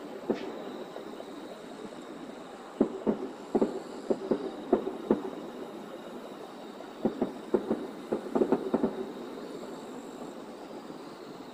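Aerial firework shells bursting in the distance: a run of sharp bangs about three to five seconds in, then another run about seven to nine seconds in.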